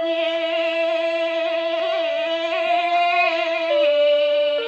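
A woman chanting shigin, the Japanese recitation of classical Chinese poetry, drawing out long wavering notes with small pitch steps. Underneath is a steady held accompaniment tone that drops a step near the end.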